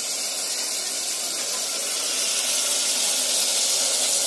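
Steady hiss of onion-tomato masala cooking in an aluminium pot on a gas stove, growing a little louder about two seconds in.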